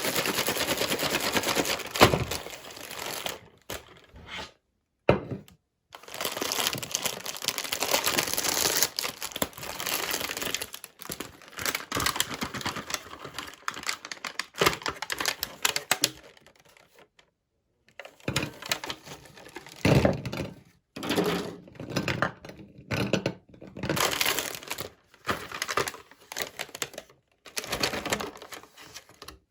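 Meat grinder crushing white chocolate candy: irregular crackling and crunching in stretches of a few seconds, broken by short silent gaps.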